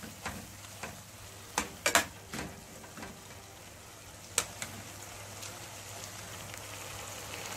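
Metal spoon stirring steamed cabbage and vegetables in a frying pan, several sharp clicks and scrapes of the spoon against the pan, mostly in the first half. Under them a steady hiss of the vegetables steaming and sizzling, a little louder in the second half.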